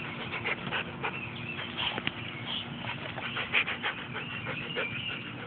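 A dog sniffing close to the phone's microphone in a run of quick short sniffs, with birds chirping in the background.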